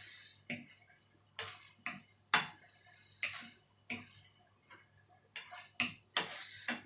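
Fork clinking and scraping on a plate while eating spaghetti: a string of short, separate clicks about one or two a second, with a longer hissy scrape about six seconds in.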